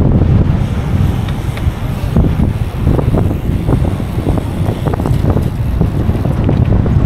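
Wind buffeting the microphone of a camera riding along on a bicycle at speed: a loud, steady rumble with scattered clicks and knocks in the middle.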